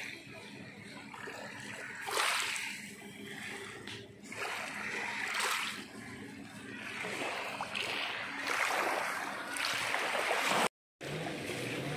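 Small waves washing in on a pebble shore, a rushing swell every one to three seconds, over a faint steady low hum. The sound drops out for a moment near the end.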